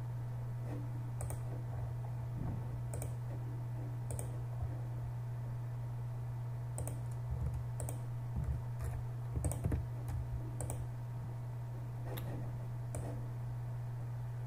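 Sharp clicks from a computer mouse and keyboard, about a dozen scattered through the stretch, some in quick pairs, over a steady low hum.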